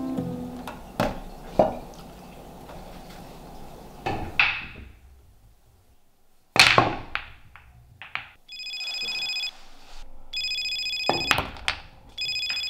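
Pool balls clacking: cue strikes and balls knocking together and against the cushions, the loudest a sharp crack about six and a half seconds in. From about eight and a half seconds a phone ringtone rings in three repeated bursts, with a few more ball knocks in between.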